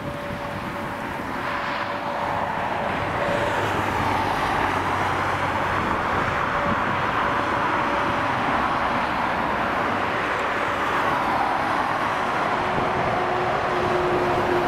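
Airbus A321neo's Pratt & Whitney PW1100G geared turbofan engines running as the airliner taxis: a steady jet rumble with a thin whine. The sound grows louder over the first few seconds, then holds steady.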